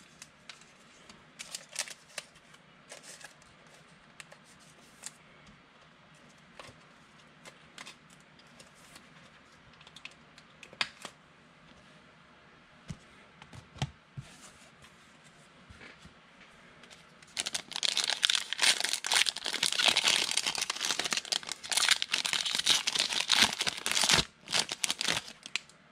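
Trading-card pack wrapper being torn open and crinkled, a dense stretch of crackling from about two-thirds of the way in. Before it come only faint clicks and ticks of cards being handled.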